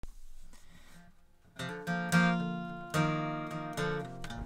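Acoustic guitar strummed inside a car, coming in after about a second and a half of near quiet, with a run of strummed chords left ringing between strokes.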